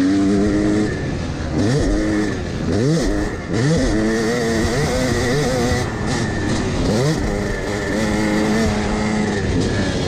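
Yamaha YZ250 two-stroke dirt bike engine heard from onboard under hard riding, revving up in several rising sweeps between stretches held at steady high revs.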